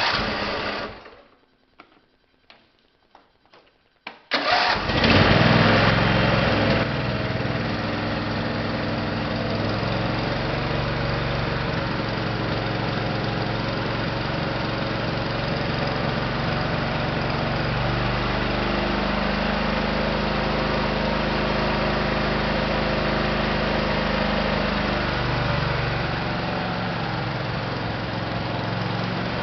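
Briggs & Stratton engine of a Craftsman GT5000 garden tractor being started: a short burst of cranking, a few clicks, then it catches about four seconds in and runs steadily, the note shifting for several seconds past the middle.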